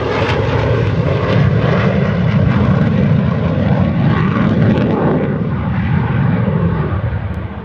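Military fighter jet passing low overhead: loud, deep jet-engine noise with a hissing top that holds steady, then starts to fade away near the end.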